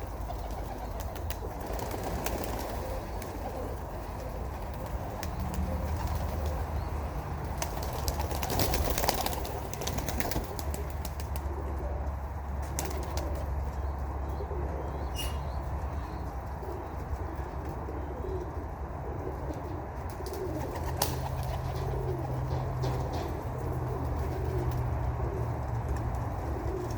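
Domestic pigeons cooing, with bursts of wing flapping as the flock is let out to fly, over a steady low hum.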